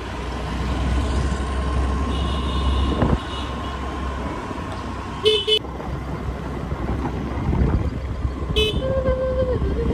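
Wind and road noise rushing over the microphone on a moving scooter, with two short vehicle-horn toots, about five and nine seconds in.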